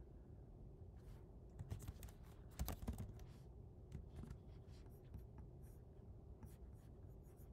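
Keystrokes on a computer keyboard: scattered quick taps, with the loudest cluster of clicks a little under three seconds in, over a faint low background hum.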